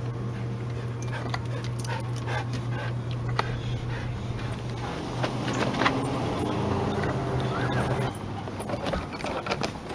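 A husky-type dog whimpering, with footsteps and clicks on wooden boards, over a steady low hum that stops about eight seconds in.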